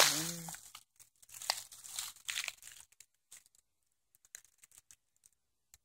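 A brief voice sound at the very start, then footsteps crunching and rustling through dry fallen leaves for the first few seconds, thinning to a few faint crackles.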